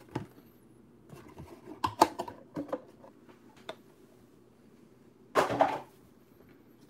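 A cardboard trading-card hobby box and its foil-wrapped packs being handled and set down on a table: a few light taps and knocks about two seconds in, and a louder brief rustle about five and a half seconds in.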